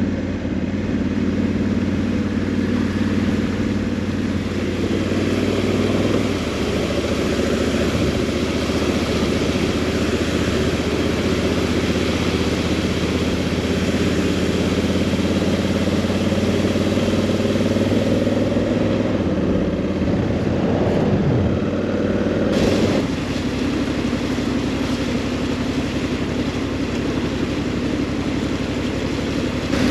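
Honda Africa Twin's 1084 cc parallel-twin engine running as the motorcycle is ridden, with a steady rush of wind and road noise. The engine note changes pitch a few times as the speed changes.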